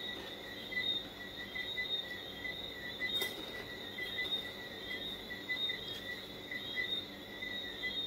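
Cricket chirping: a steady, rapidly pulsing high trill, with one short faint click about three seconds in.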